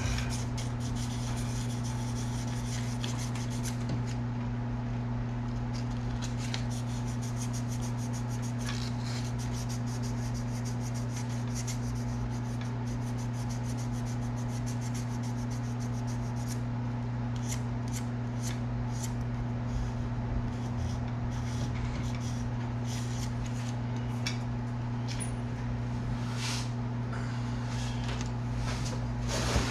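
Sandpaper rubbed by hand over the painted end of a fishing rod blank in quick repeated strokes, scuffing the paint so epoxy will grip. The strokes thin out in the second half, over a steady low hum.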